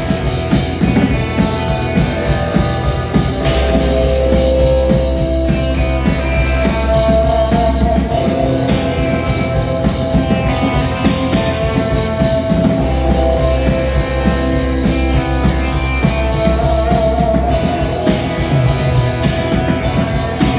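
A rock band playing with drum kit and guitar, a sustained note held over steady drumming.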